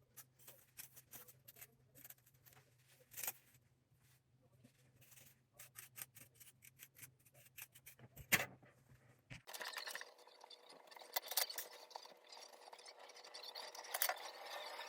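Faint irregular clicks and light taps of hands handling small objects. About nine seconds in, the background hum cuts off and a steady hiss with more rustling and clicking follows.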